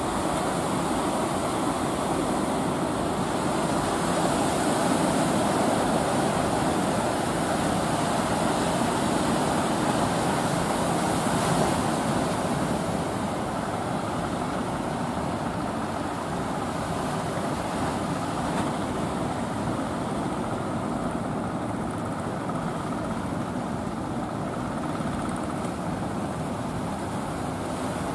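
Steady mix of surf breaking and the engines of fishing boats running as they come through the waves, with no single event standing out.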